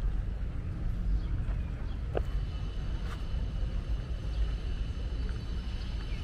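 Outdoor park ambience: a steady low rumble, with one short click about two seconds in, followed by a faint, thin, steady high tone.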